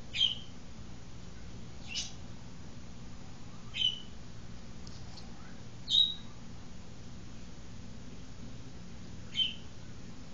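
A bird calling with short, sharp, high calls that sweep down, five of them a couple of seconds apart, over a faint steady low hum.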